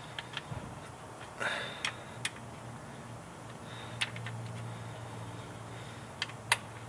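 Scattered light metallic clicks and taps of a hand tool on the bolts of a 45RFE automatic transmission's valve body as they are tightened, with two sharper clicks near the end. A faint low hum runs underneath.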